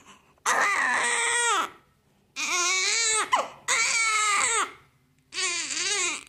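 Newborn baby crying: four wails of about a second each, each rising and then falling in pitch, with short pauses between them.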